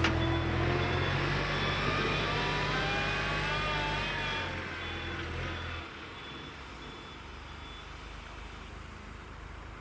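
Hitachi ZW40 wheel loader running under load with a whine that rises in pitch, its reversing alarm beeping about twice a second as it backs away. The engine fades after about six seconds as the loader moves off.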